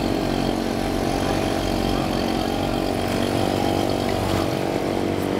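Small engine of a bumper boat running steadily at an even pitch.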